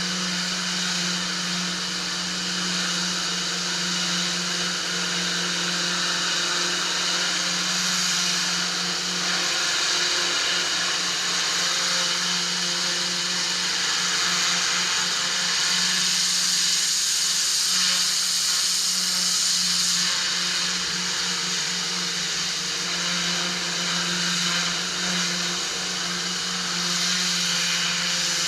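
Pressure washer running steadily, with a constant motor hum under the hiss of its water jet spraying on paving.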